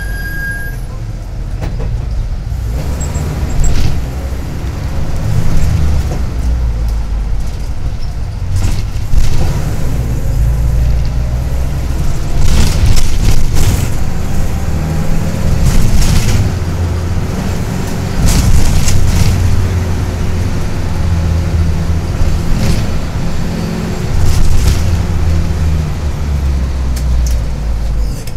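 Minibus engine and road noise heard from inside the passenger cabin while driving, a deep rumble that swells and eases as the bus speeds up and slows. A few sharp knocks or rattles come through now and then.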